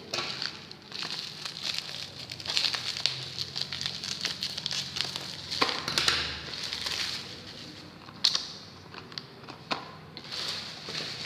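Plastic packaging crinkling and clicking as it is handled and opened, with several sharper clicks along the way.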